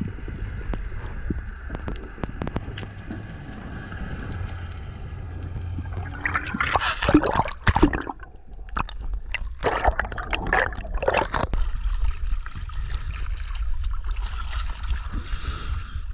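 Water gurgling and sloshing around a freediver, over a steady low rumble with scattered clicks, and two loud rushing bursts of water about six and ten seconds in.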